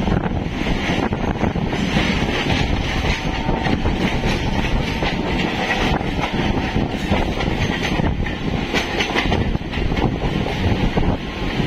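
EMU suburban electric train running, its wheels clattering over the rail joints in an irregular rhythm over a steady rumble of running noise.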